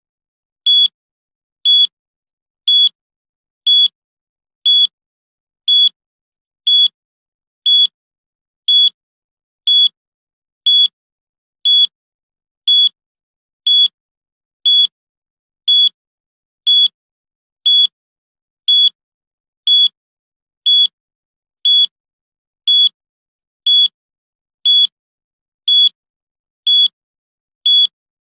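Countdown timer beeping once a second: a short, high single-tone beep every second, evenly spaced, as the timer counts down.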